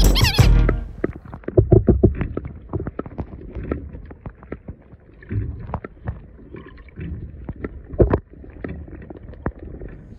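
Muffled underwater sloshing and gurgling with irregular knocks and thumps, heard through a camera held under the surface of the river beside a landing net; a sharp knock comes about eight seconds in. Background music cuts off just after the start.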